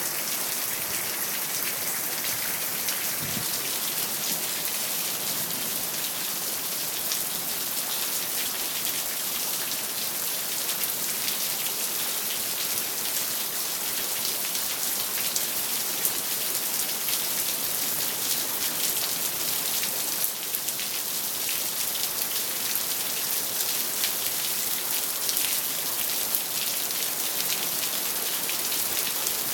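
Steady rain falling, a dense hiss of many small drop ticks that keeps an even level throughout.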